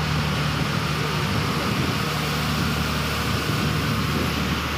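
Diesel engine of a passenger train idling: a steady, loud drone that holds a low pitch throughout, with no change in level.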